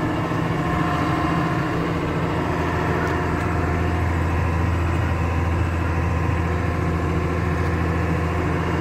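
Tractor engine running at a steady speed, heard from inside the cab: an unbroken low drone.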